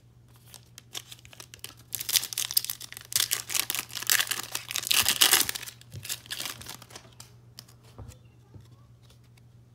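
A foil 2021 Panini Mosaic Football card pack being torn open, its wrapper crinkling loudly for a few seconds in the middle, with a few light handling clicks before and after as the cards are pulled out.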